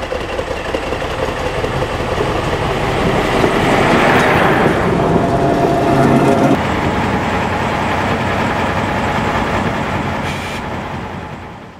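Modrý šíp railcar M 274.004, built by Škoda Plzeň in 1934, approaching and running past at speed. Its engine and wheels on the rails grow louder to a peak between about four and six seconds in. The sound drops sharply soon after and fades out near the end.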